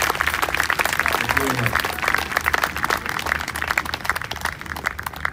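Crowd applauding, a dense patter of many hands clapping that thins and fades toward the end, with a brief voice rising out of it about a second and a half in.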